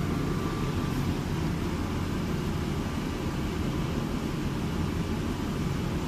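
Zanussi TC 7102 tumble dryer running with a steady low hum of its motor and turning drum, running smoothly with no knocks or squeals.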